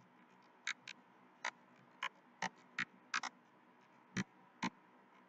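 Computer keyboard keystrokes: about ten light, irregularly spaced taps as text is typed, over a faint steady hum.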